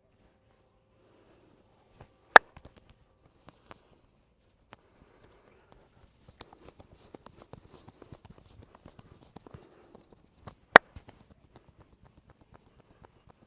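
Hands slapping and tapping on a person's head and back in a fast massage: a quick run of light slaps, with two sharp, loud cracks well apart.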